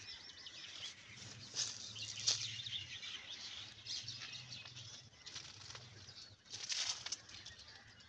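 Small birds chirping outdoors, with short bursts of rustling noise a few times and a faint low steady hum underneath.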